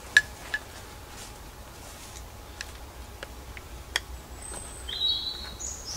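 Scattered sharp clicks and snaps, two loud ones in the first half second, then a few fainter ones. Short, high-pitched chirps of a woodland bird come about four and a half to six seconds in.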